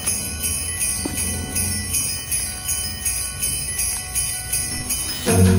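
Background music opening with jingle bells shaken in a steady rhythm over faint held tones; near the end fuller music with deeper notes comes in.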